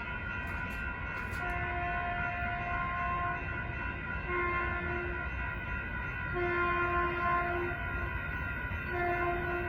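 Caltrain locomotive horn sounding four blasts, the first and longest about two seconds, over the steady ringing of level-crossing warning bells and a low rumble.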